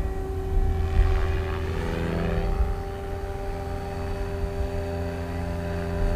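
XL Power XL550 radio-controlled helicopter in flight: its rotor and motor give a steady whine over a low rumble, with a brief rushing swell about two seconds in.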